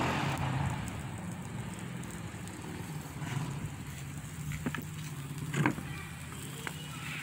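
A vehicle engine running, a steady low hum, with a louder rushing noise fading away in the first second. Two short knocks come about halfway through, the second one the loudest.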